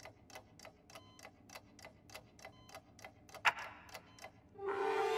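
A clock ticking steadily, about three to four ticks a second, with one louder click about three and a half seconds in. Near the end a voice begins a loud, drawn-out sound.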